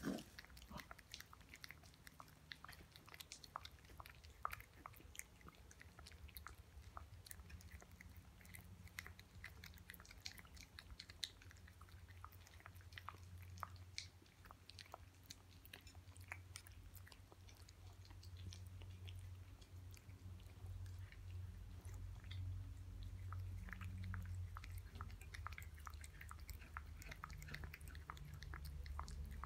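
Domestic cat chewing and lapping soft canned pâté cat food from a china saucer: a faint, steady stream of small wet mouth clicks. Under it runs a low steady hum, stronger in the second half.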